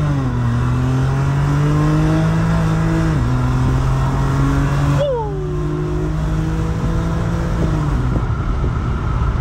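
Supercharged Lexus IS350's 3.5-litre V6 heard from inside the cabin, pulling through the gears. The engine note drops at upshifts near the start, about three seconds in and near eight seconds. A high whine sweeps down sharply about five seconds in.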